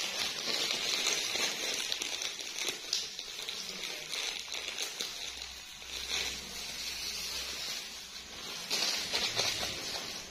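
Plastic crinkling and rustling, a hissy, crackly handling noise in irregular bursts, loudest around the first two seconds and near the end.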